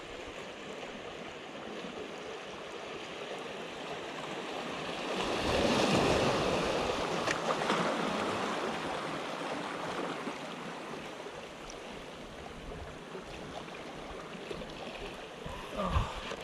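Small sea waves washing against shoreline rocks. One wash swells up about five seconds in and slowly recedes, and there is a short thump near the end.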